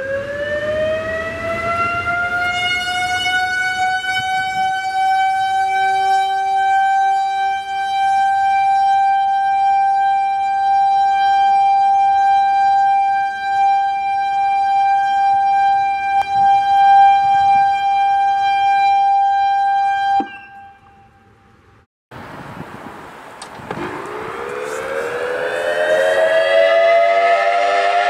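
An ACA outdoor warning siren, run from an analog controller, winds up from a low pitch over a few seconds and then holds one steady tone. About twenty seconds in it cuts off and fades away. After a short gap a second ACA siren, run from a digital controller, starts winding up, its several tones rising together.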